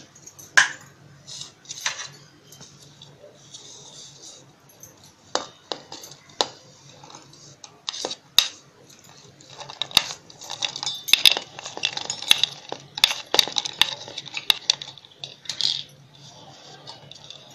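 Pieces of garlic, ginger and green chilli dropped by hand into an empty stainless-steel mixer-grinder jar: scattered clinks and taps on the steel, sparse at first and coming thicker about ten seconds in.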